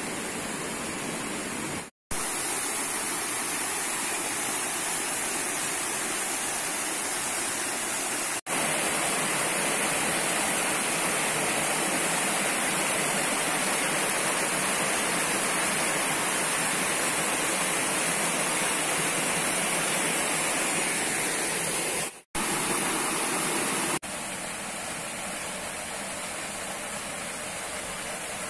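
Steady rush of river water flowing, the stream running full after rain. The sound breaks off for an instant twice, about two seconds in and again near the end, and its level steps up and down between stretches.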